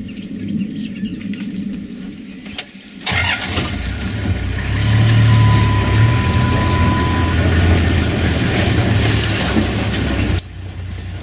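A vehicle engine starts suddenly about three seconds in and runs steadily and loudly, then stops abruptly near the end.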